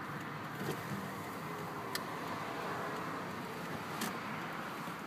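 Steady road and tyre noise of a car driving slowly, heard from inside the cabin, with two short sharp clicks about two seconds in and again near four seconds.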